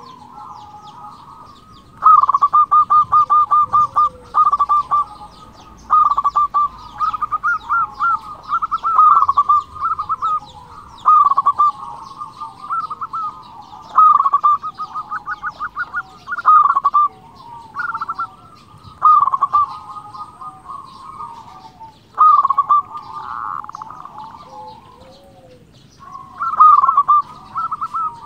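Local zebra dove (perkutut) in full song: phrases of rapid staccato coos, repeated about every two seconds. Faint chirps of small birds sound behind it.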